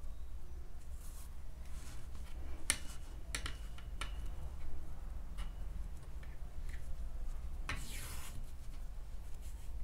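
Crocheted acrylic yarn rustling as a darning needle is worked through it, with scattered small clicks of the needle against a metal ring, and a longer swish near the end as the yarn is pulled through. A steady low hum runs underneath.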